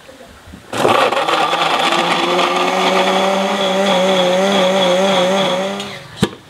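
Countertop electric blender with a glass jar grinding peeled garlic cloves to a paste: the motor starts abruptly about a second in and runs with a steady whine for about five seconds, then stops. A single sharp click comes just after it stops.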